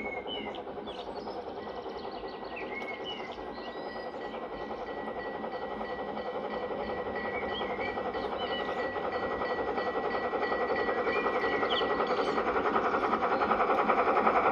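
G-scale garden railway train rolling along its track, its wheels rattling over the rails in a fast, even rhythm and growing steadily louder as it approaches.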